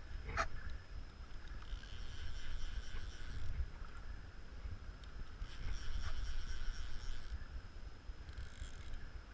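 Wind rumbling on the microphone over small waves lapping in shallow salt water, with three spells of a brighter hiss lasting a second or two each and a single click about half a second in.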